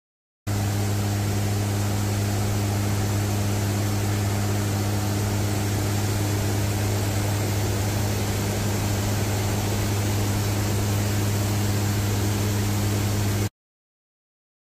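Steady drone inside a WC-130J Hercules in flight: its turboprop engines and propellers hum with one strong low tone over an even hiss. The sound cuts in about half a second in and cuts off to silence near the end.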